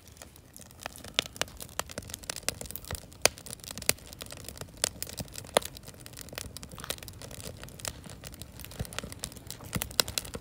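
Wood fire in a portable metal fire pit crackling, with a dense run of irregular sharp pops, a few of them much louder than the rest.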